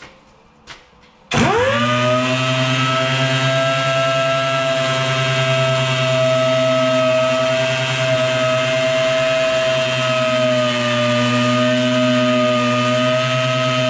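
A power tool's motor switched on after two light clicks, spinning up to speed within a fraction of a second and then running steadily at a constant pitch.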